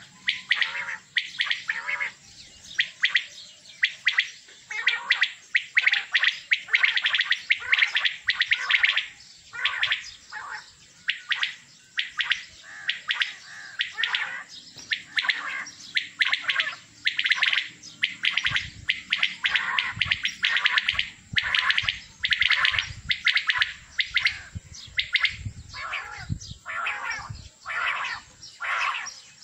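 Many male quail calling at once, their short repeated calls overlapping into a continuous chorus.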